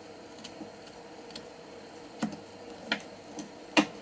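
Kitchen knife knocking on a cutting board while carving a raw carrot: a few sharp knocks, the loudest near the end.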